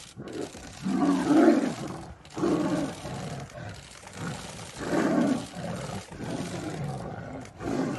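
Two tigers fighting, roaring and snarling in four loud bursts with growling between them. The loudest roar comes about a second and a half in.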